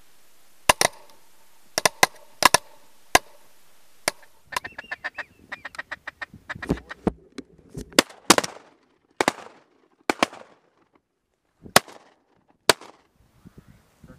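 Ducks quacking: loud, short, separate quacks, with a quick run of rapid calls about five seconds in, over a faint hiss during the first few seconds.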